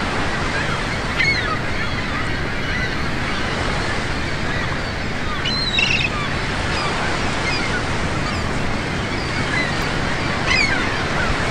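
Beach ambience: steady surf with many short bird calls over it, the loudest calls about a second in, near the middle and near the end.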